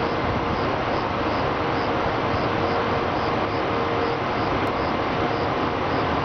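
FS E652 electric locomotive hauling the SPENO rail-grinding train, moving off slowly from a standstill. It gives a steady hum with a held tone over a constant rush of noise.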